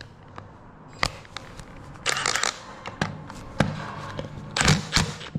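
A Milwaukee cordless impact wrench and its battery pack being handled: a string of separate plastic clicks and clacks, with a short rustling scrape about two seconds in and a cluster of knocks near the end. The wrench is not running.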